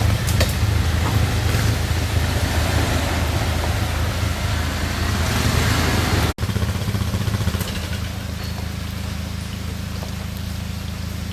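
A 4x4's engine running steadily as a low hum, under an even hiss of wind or water. About six seconds in the sound drops out for an instant, and the hiss is quieter afterwards.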